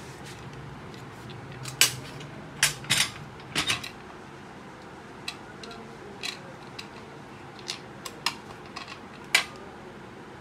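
Clicks and clatter of small metal fittings and the electric duck call's plastic speaker horn being handled and fitted to its metal bracket on a glass tabletop: several sharp knocks in the first four seconds, then lighter scattered ticks.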